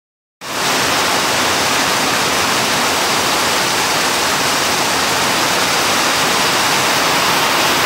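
Heavy tropical rain falling, with water streaming off a roof edge close by: a dense, steady hiss that starts abruptly about half a second in.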